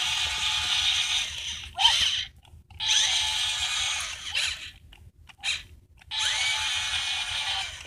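A small motor on a toy scooter whirring in several bursts with gaps between them. Some bursts start with a rising whine as the motor spins up.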